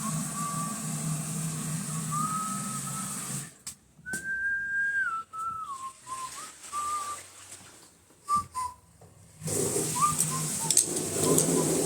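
A person whistling a slow tune, with held notes that step up and down, over a steady low hum. A few sharp clicks come in the second half.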